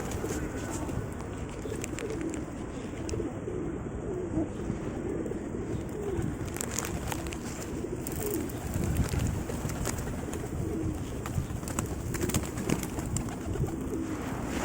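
Pigeons cooing over and over in low, wavering calls, with occasional sharp clicks.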